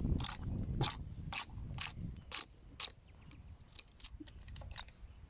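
Chisel scraping bark off a log in short, quick strokes, about two a second, growing fainter after the first few seconds.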